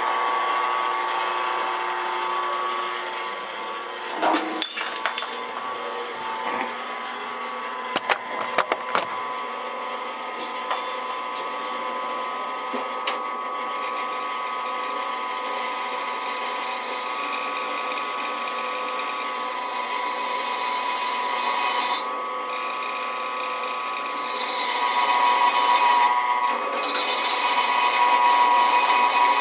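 Drill press running, its bit cutting a hole through a stack of tack-welded steel pieces with a steady whine. A few sharp clicks come between about four and nine seconds in, and the cutting grows louder near the end.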